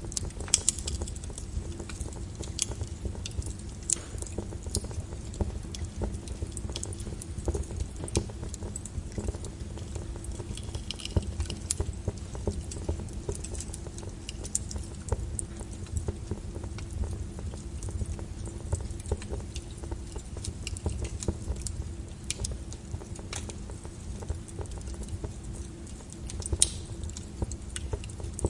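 Steady low brown noise with the irregular crackles and pops of a burning wood fire scattered over it.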